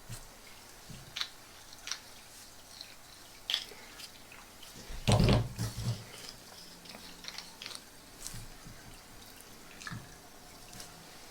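Scattered small clicks and taps from plastic Pez dispenser packaging being handled, with a louder cluster of knocks about five seconds in.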